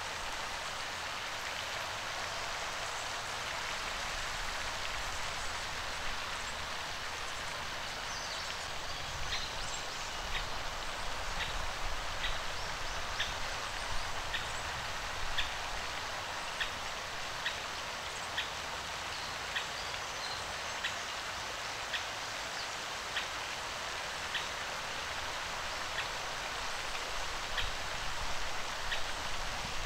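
Steady hiss of running water or rain. From about nine seconds in, short high peeps come about once a second, from the resting mandarin ducklings.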